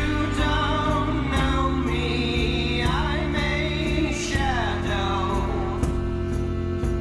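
Background music: sustained low chords with a wordless singing voice gliding over them.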